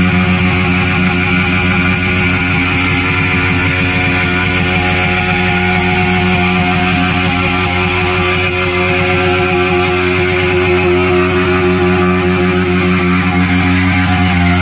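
Background rock music with distorted electric guitar.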